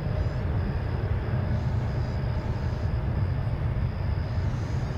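Steady low rumble of jet airliner engines.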